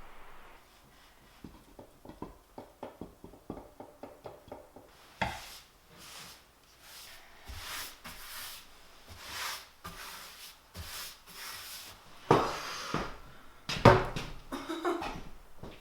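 Objects being handled and shifted: a run of light ticks, then several seconds of rubbing and scraping, ending in a few loud knocks about twelve seconds in.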